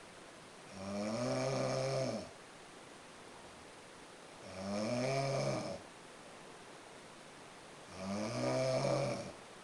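Loud snoring: three long snores, evenly spaced about three and a half seconds apart, each lasting about a second and a half.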